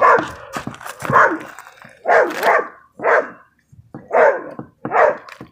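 Excited American Staffordshire terrier–pit bull mix barking close by: about six short, pitched barks spaced roughly a second apart.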